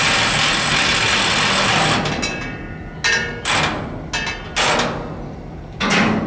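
Steam locomotive letting off a long, loud hiss of steam, then a few slow, uneven exhaust chuffs, as when it starts to move.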